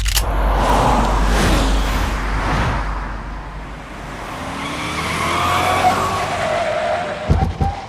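A sharp metallic click at the start, then cars arriving with their tyres squealing as they brake. Near the end come two quick thumps.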